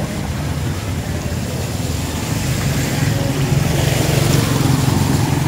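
Motor vehicle engine running steadily while under way, with a rushing noise that swells about four seconds in.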